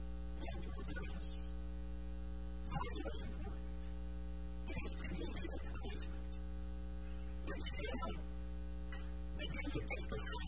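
Steady electrical mains hum, a low buzz with a stack of steady overtones, with faint short sounds about every two seconds.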